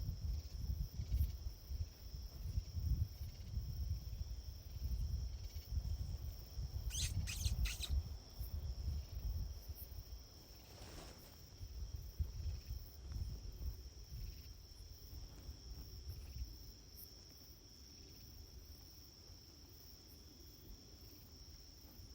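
A steady, high-pitched chorus of night insects, with an uneven low rumble on the microphone. A short run of clicks comes about seven seconds in.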